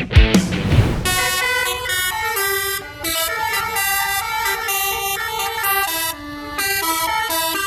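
Bus 'telolet' multi-tone horn playing a tune of quick stepped notes, several pitches in a row with short breaks. For about the first second, heavy drum hits from rock music lead into it.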